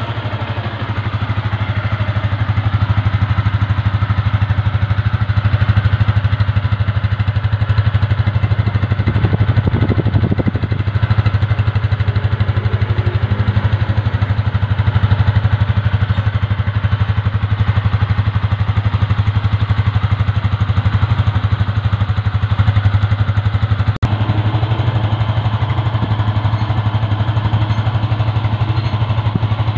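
2019 Yamaha Sniper 150's single-cylinder four-stroke engine idling steadily through its stock exhaust while warming up. A single sharp click comes late on.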